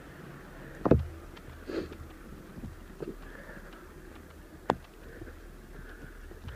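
Blizzard wind rumbling steadily on the microphone, with four separate sharp thumps, the loudest about a second in.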